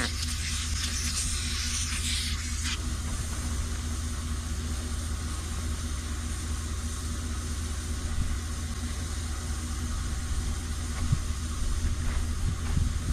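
Air hissing from a pickup truck's tyre valve, which cuts off about three seconds in, over the steady low rumble of the truck's engine idling.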